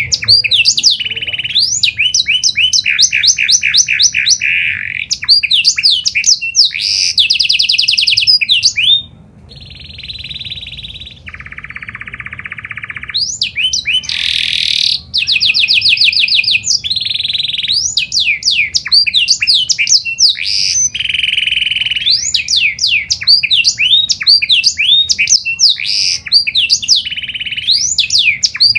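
Pied domestic canary singing a long, nearly unbroken song of fast trills and rapidly repeated rising-and-falling notes. The song goes briefly quieter about nine seconds in, with a lower buzzy phrase, before resuming at full strength.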